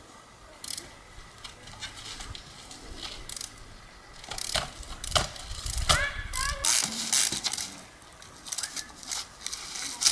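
Trials bike hopping among rocks: a string of sharp knocks as the tyres land on stone, with the ratcheting clicks of the freewheel hub between them. A short squeal comes a little past the middle.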